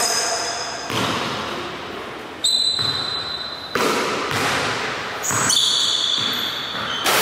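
A basketball bounced on a hardwood gym floor, a handful of separate bounces a second or more apart, each echoing in the large hall. Sneakers squeak briefly on the floor.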